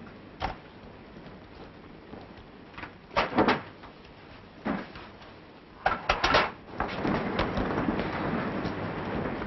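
Scattered knocks and bumps of people moving about with bags, with a quick cluster of them about six seconds in, followed by a steady hiss.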